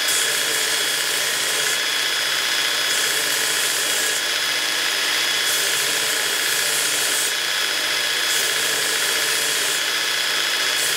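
Belt grinder running steadily with a constant motor whine, while a welded steel scabbard piece is pressed against the abrasive belt in repeated passes. The high grinding hiss swells and eases as the steel goes onto the belt and comes off.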